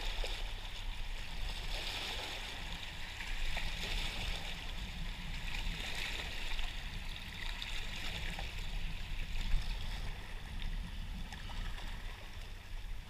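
Small waves washing and lapping against the rocks of a stone jetty, a steady rushing of water.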